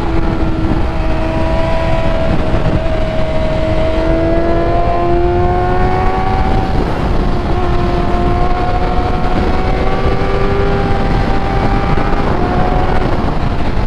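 Vehicle engine held at high revs at speed, its pitch climbing slowly and steadily, over a heavy rush of wind.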